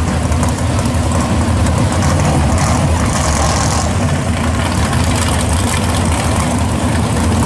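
1966 Pontiac GTO drag car's V8 engine idling with a loud, steady low rumble as the car creeps forward at the strip.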